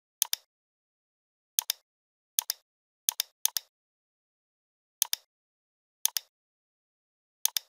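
Computer mouse clicks: eight sharp clicks, each a quick press-and-release pair, coming at uneven intervals with dead silence between them.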